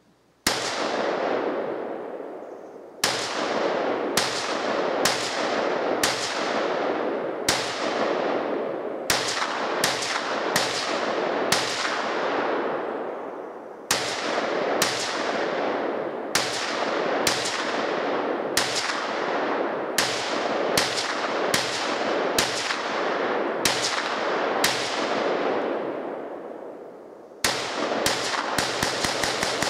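Semi-automatic rifle fire from several shooters, each shot trailing a long echo. It opens with a single shot, then runs at about one to two shots a second with a couple of short pauses, and ends in a rapid string of about eight shots fired in under two seconds.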